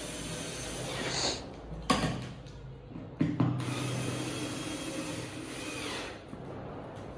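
Cordless drill-driver running in stretches as it drives screws through an office chair's metal mechanism plate into the seat. The motor whine stops briefly just before two seconds in, restarts sharply, and makes its longest run from about three to six seconds in.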